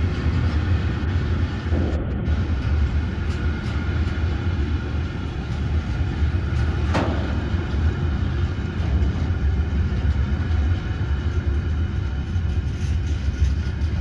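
Freight train of covered hopper wagons rolling past close by: a steady low rumble of wheels on rail, with one sharper hit about seven seconds in.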